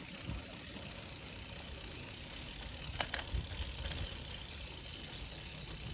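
Bicycle rolling over cobblestones: a steady rumble and rattle from the tyres and frame, with one sharp click about three seconds in.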